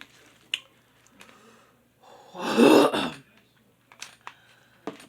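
A woman clears her throat once, loudly and roughly, about two and a half seconds in, reacting to the burning heat of very spicy noodles. A few faint clicks come before and after.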